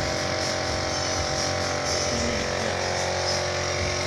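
Car engine running steadily, an even hum with a constant pitch.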